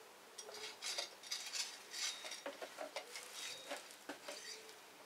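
Light clinks and rattles of small hard objects knocking together: tools being handled at the fork leg while the fork oil level is set. A string of short, uneven knocks starts about half a second in and fades before the end.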